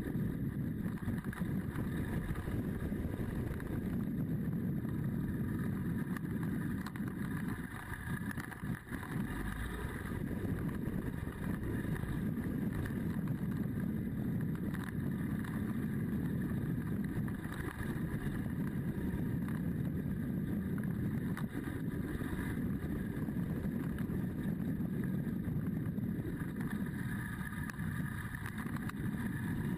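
BMW GS adventure motorcycle running along at steady speed, its engine drone mixed with wind rushing over the camera's microphone. The engine note eases briefly about eight or nine seconds in, as if the throttle is rolled off, then picks up again.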